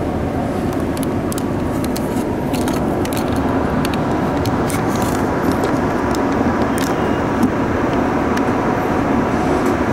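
Tokyo Metro 05N-series subway train running on the line, heard from inside the car: a steady rumble of wheels and running gear, with scattered light clicks and rattles.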